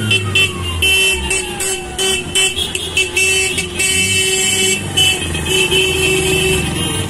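Many car horns honking over slow traffic, with a police car siren rising and then falling away slowly at the start.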